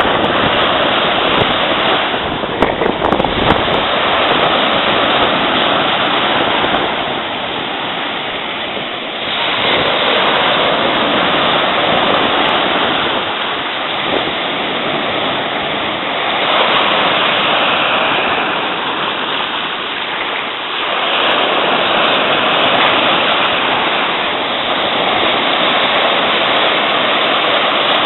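Ocean surf washing, with a steady rushing noise that swells and eases every several seconds as the waves come through.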